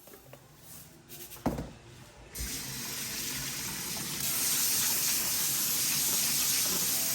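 A kitchen tap is turned on and water runs into a pot to wash rice, a steady rush that gets louder about four seconds in. A single sharp knock comes just before the water starts.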